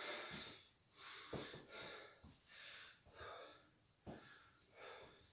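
A man breathing hard after a burst of punching: quick, hissy breaths in and out, more than one a second, with a few soft thumps among them.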